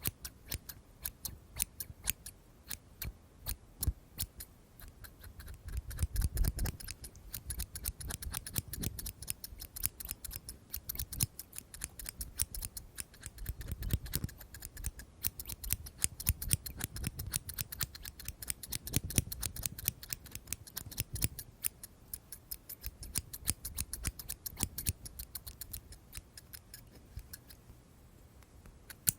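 Scissors snipping close to the microphone: many quick, crisp snips, several a second in uneven runs, with soft low rustles of handling now and then.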